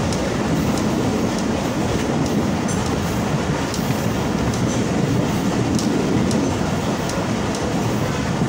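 Mohen Jo Daro Express passenger train running at speed, heard from on board at an open window: a steady rumble of wheels on rails with faint clicks now and then.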